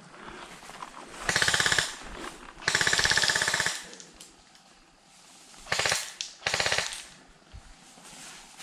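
Airsoft electric gun firing full-auto, four rapid bursts: two near the start, the second lasting about a second, and two short ones later.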